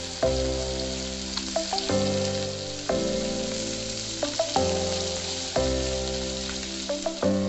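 Masala-coated pink perch frying in shallow oil in a nonstick pan, a steady sizzle with a few small pops. Over it plays background music of held notes that change about once a second.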